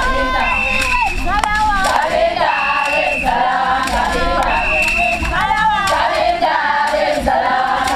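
Group of young women singing a traditional dance song together, the phrase repeating over and over, with a high held note returning about every two seconds.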